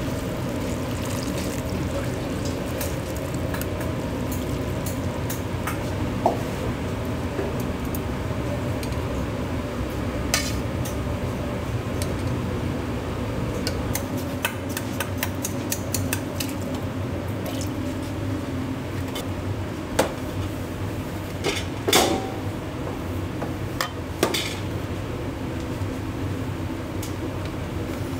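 Restaurant kitchen work: scattered clinks and knocks of utensils against dishes and pans, a few of them ringing briefly, over a steady background hum.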